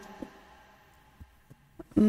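A quiet pause in speech: faint room tone with a few soft, faint clicks.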